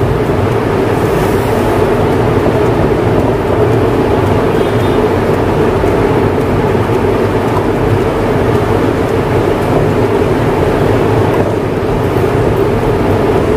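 Steady, loud rumbling noise with no break or change, heaviest in the low and lower-middle range.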